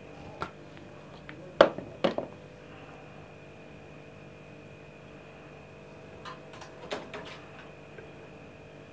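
A few short clicks and knocks of kitchen handling, the loudest two half a second apart about one and a half seconds in and a small cluster near seven seconds, over a faint steady hum.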